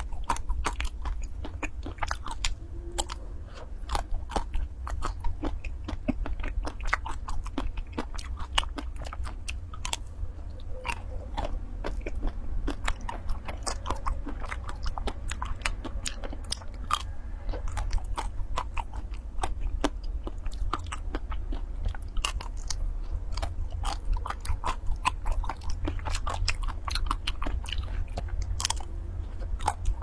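Close-up biting and chewing of a chocolate-and-nut coated ice cream bar, the crisp coating cracking and crunching in many quick, sharp crackles, over a steady low hum.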